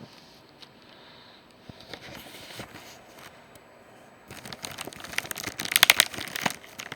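Action-figure packaging being handled and pulled open: quiet rustling at first, then crinkling and tearing that gets louder and denser in the second half.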